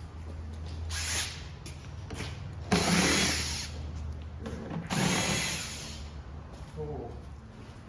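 Power drill with a socket running in short bursts to undo the bolts holding a car's front bumper: a brief spin about a second in, then two louder runs of about a second each.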